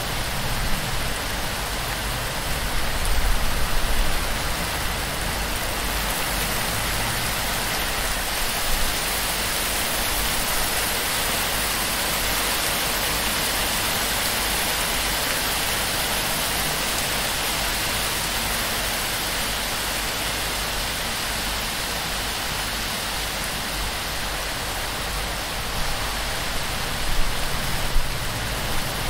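Heavy, torrential rain falling on a palm-leaf shelter and pouring off the fronds: a dense, steady hiss, with brief louder swells about three seconds in and again near the end.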